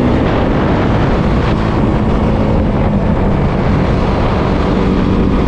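Motorcycle engine running at a steady pace on the move, with wind blowing across the microphone.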